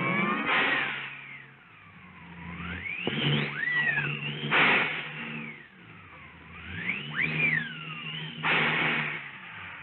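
Early sound-cartoon storm effects: a howling wind made of whistling glides that rise and fall again and again, over low sustained music, with two short crashes for thunder about four and a half and eight and a half seconds in. The sound is dull and thin, as on an old optical soundtrack.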